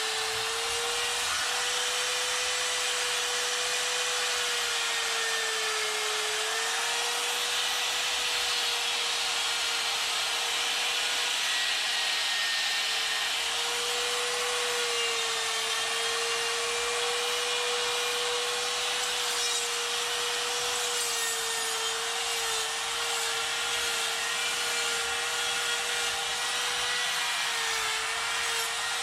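Electric die grinder running at high speed with a rotary burr cutting and smoothing wood: a steady high whine that sags slightly in pitch now and then as the burr bites, over a continuous rasping of wood being ground away.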